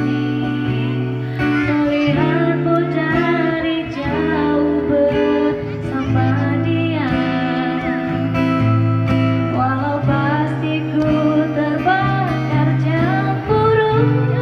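A song: a voice singing held, gliding notes over guitar and steady low accompanying notes.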